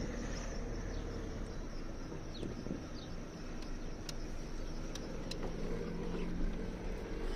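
A car driving along with its windows open: steady engine and road noise, with a few sharp clicks about four and five seconds in. The occupants hear a slight belt noise in the engine sound.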